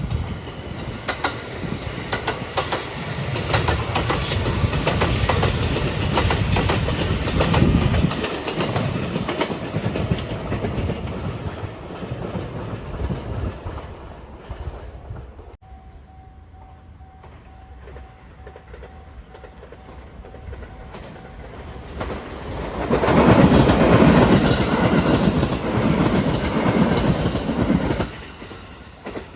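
Electric trains passing a level crossing. First a train runs by with its wheels clicking over the rail joints, then, after a sudden cut, a level crossing warning bell rings on its own. About three-quarters of the way in a second train passes, louder than the first.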